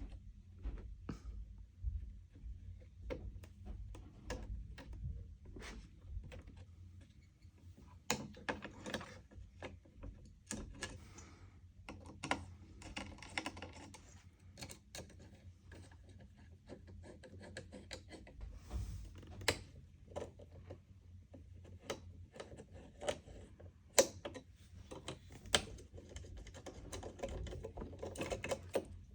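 Irregular clicks, taps and rustling from hands handling computer parts, with two sharper clicks about three-quarters of the way through.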